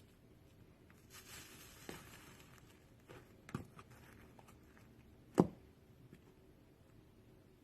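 Slime being handled and squeezed: a short soft hiss, then a few sharp pops, the loudest about five and a half seconds in.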